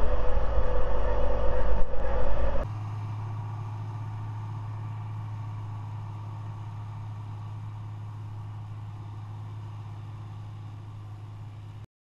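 Ford TW-25 tractor's six-cylinder diesel engine pulling a reversible plough through the soil, heard loud and close from the plough. After about two and a half seconds it drops to a much quieter steady low drone of the tractor working at a distance, which fades slightly and cuts off abruptly near the end.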